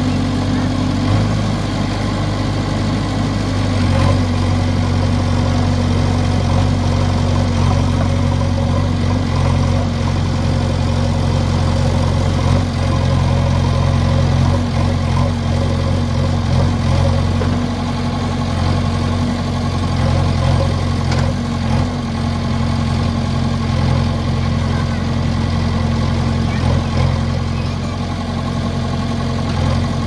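Diesel engine of a JCB 3DX Xtra backhoe loader running steadily as the machine works its hydraulic arms while bogged down in deep mud. The engine note shifts a couple of times in the first few seconds, then holds.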